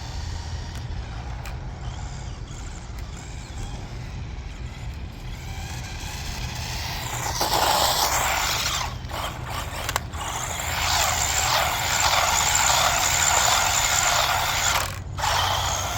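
Brushed electric motor and gearbox of a 1/14-scale RC truck whirring as it is driven, getting louder about halfway through and cutting out briefly a few times, over a steady low hum.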